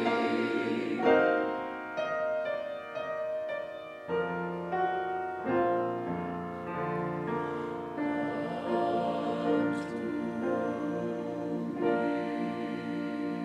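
Church choir singing a sacred anthem with piano accompaniment, in sustained chords.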